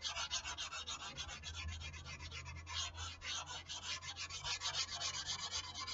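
Sandpaper rubbed by hand over a foam RC airplane wing in quick back-and-forth strokes, several a second, smoothing out the rough gatored foam left by steaming out a dent.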